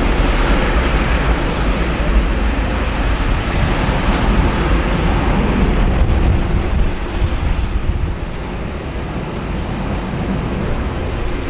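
Airbus A330-300 jet engines at high thrust: a loud, steady rushing noise with heavy low rumble that eases slightly after about seven seconds.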